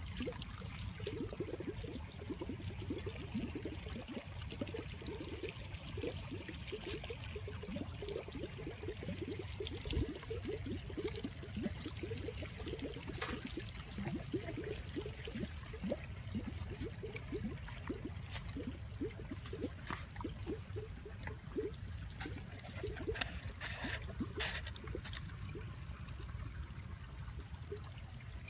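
Water trickling and splashing in many small, irregular movements, with scattered sharp clicks.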